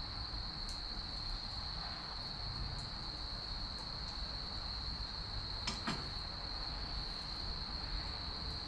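Wood fire of chestnut and cherry logs burning, with a few faint crackles and one sharper pop about six seconds in. A steady high-pitched chirring runs underneath.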